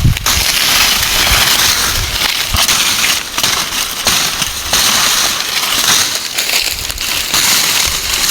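Dry maize stalks and leaves crackling and rustling loudly as they are handled and cut, with frequent sharp snaps.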